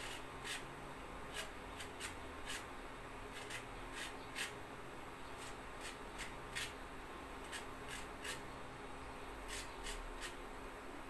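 Lemon peel being grated on a small hand grater for zest: short, irregular scraping strokes, a little over one a second, over a faint steady hum.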